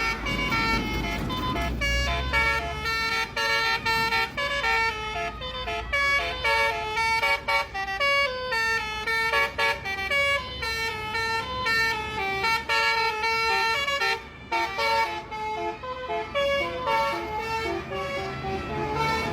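Multi-tone 'telolet' bus horn playing a fast melody, its pitched notes jumping from one to the next with a short break about two-thirds of the way through.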